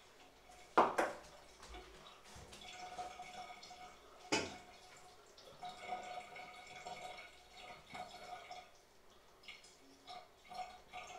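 A stainless steel ladle set down on a wooden worktop with a sharp clack about a second in, then a second knock a few seconds later. Faint water dripping and trickling between them.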